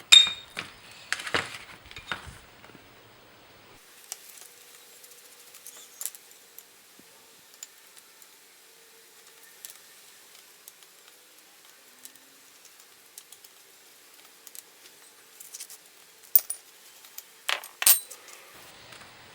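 Metal tools and small carburetor parts clinking and clicking on a workbench as the carburetor bank is taken apart. There is a sharp clink right at the start and several more over the next two seconds, then scattered light ticks, and a few sharp clicks again near the end.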